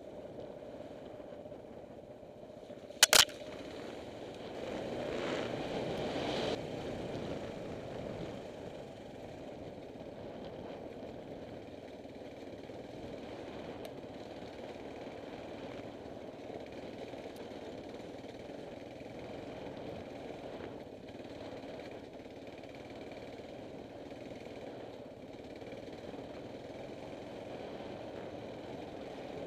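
Motorcycle engine running while riding over a rough, rocky dirt track. There is one sharp knock about three seconds in, and a louder stretch from about five to six and a half seconds.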